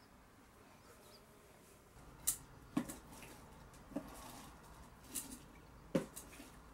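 Several short, light clicks and knocks at irregular intervals, about a second apart, starting about two seconds in over a faint background.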